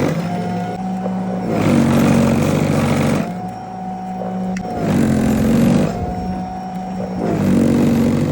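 Greenworks Pro battery-powered snowblower running with a steady electric-motor whine. Its auger churns through snow in a regular cycle: the sound swells, rougher and louder, about every three seconds, four times, then eases back.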